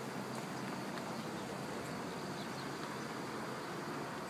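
Steady road and engine noise of a car driving along, heard from inside the cabin, with a few faint ticks.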